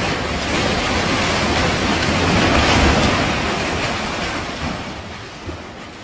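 Strong storm wind blowing in a loud gust that builds to a peak about halfway through, then eases off.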